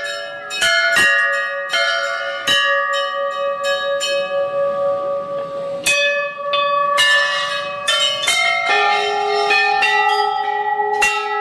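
Several hanging temple bells of different pitches struck over and over in an irregular, overlapping clangour, each strike ringing on long after it is hit.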